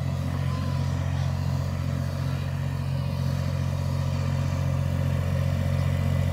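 Yanmar compact diesel tractor running steadily with its mid-mount mower deck cutting grass, a low even engine drone that grows slightly louder as the tractor comes closer.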